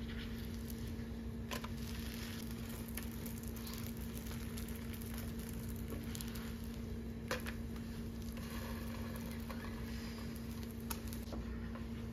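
Chapati cooking in a frying pan, sizzling lightly under a steady low hum. A spatula taps and scrapes against the pan a few times, most sharply about seven seconds in.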